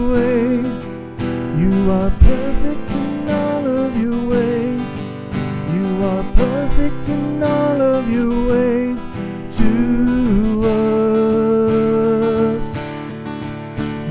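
A man singing a slow worship song over a strummed acoustic guitar, holding long notes in the second half.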